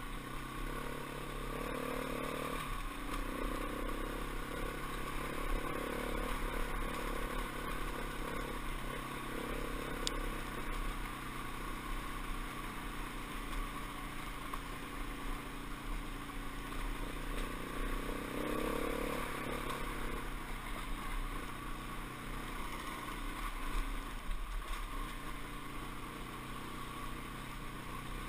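Dirt bike engine running as it climbs a rocky trail, its pitch rising and falling with the throttle.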